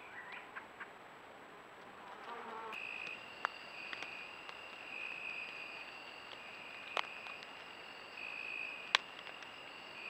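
Insects trilling, likely crickets: a steady high-pitched trill that starts about three seconds in. Three sharp clicks are scattered through it.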